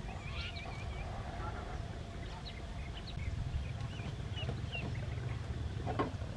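Chickens calling, with short scattered chirps and clucks and a brief warbling trill near the start, over a steady low rumble.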